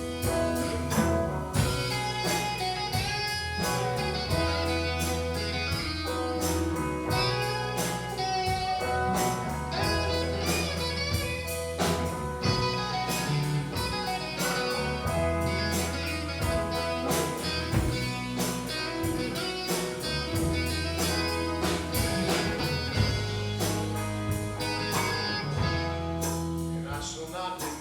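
Blues-rock band playing an instrumental break, with guitar to the fore over bass and a steady drum beat.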